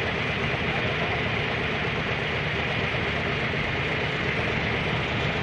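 Vehicle engine running steadily with road or traffic noise, a constant rumble with no gunshots.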